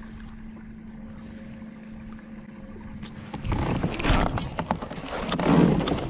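Kayak angler setting the hook on a fish: a faint steady hum at first, then about three and a half seconds in a burst of rustling, handling noise and sharp knocks against the kayak as the rod is swept up and the camera mount is jostled.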